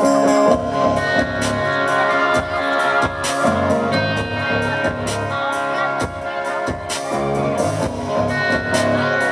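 Live country rock band playing: electric guitars, bass guitar and drum kit, with regular drum hits under sustained guitar notes.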